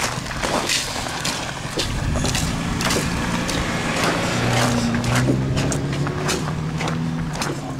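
Footsteps crunching on icy ground at a walking pace. From about two seconds in, a motor vehicle's engine hum comes in underneath, loudest around the middle.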